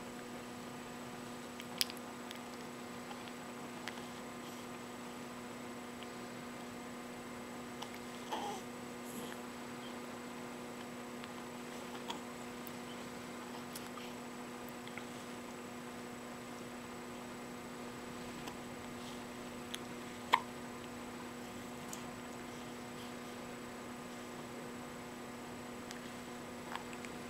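Steady electrical hum with several higher overtones, broken by a handful of short, sudden hiccups at irregular intervals of a few seconds; the loudest comes about twenty seconds in.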